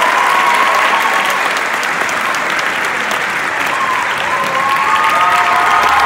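Audience applauding steadily and loudly, with a few voices calling out in the crowd.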